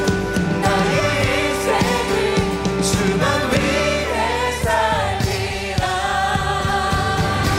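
Worship band performing a Korean praise song: several singers singing together over acoustic guitar, with drums keeping a steady beat.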